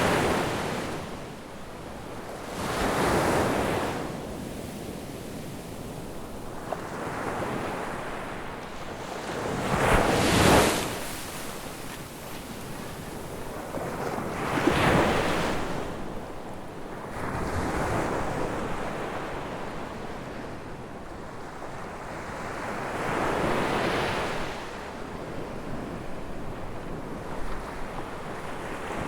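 Ocean waves breaking on a beach. Each wave swells up and washes back every few seconds, about six in all, and the loudest come near the middle.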